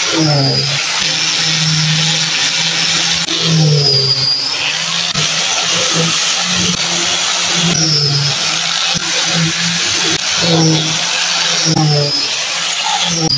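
Small handheld electric sander running against the wood of a panel door: a loud, steady whir and rasp. The motor's pitch sags and recovers about every four seconds as it is pressed into the wood and moved.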